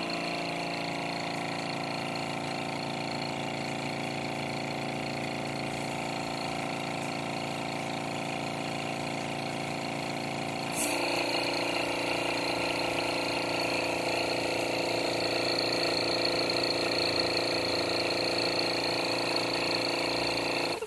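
Small air compressor running steadily and pumping air through a hose into a pressure gauge. About halfway through there is a click, the tone changes and it gets louder.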